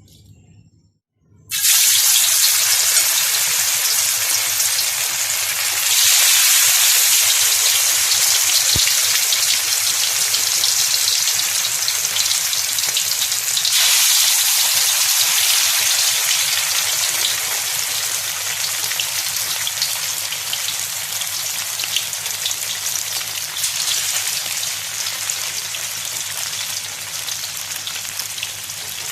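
Sardines frying in hot oil: a loud sizzle that starts suddenly about a second and a half in, grows louder twice more, and then slowly dies down.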